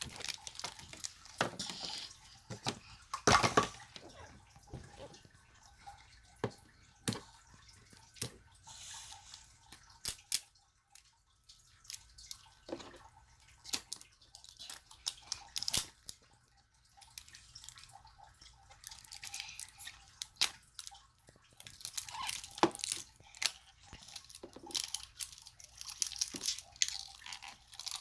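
Toy packaging being handled and unwrapped: irregular crinkles, rustles and light taps of plastic and paper, with short quiet gaps between.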